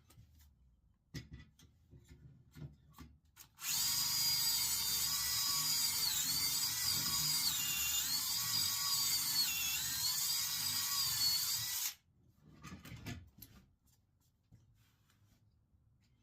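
Power drill running for about eight seconds, its whine dipping in pitch twice as it bogs under load while drilling, then stopping abruptly. A few light knocks come before and after it.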